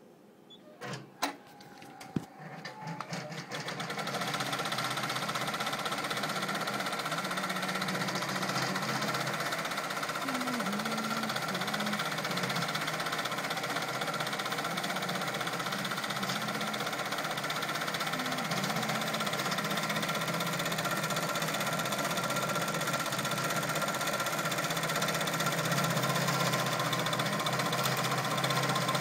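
Brother multi-needle embroidery machine stitching a velvet stocking cuff. A couple of sharp clicks come first, then the machine starts up and runs steadily at speed with a fast, even needle rattle.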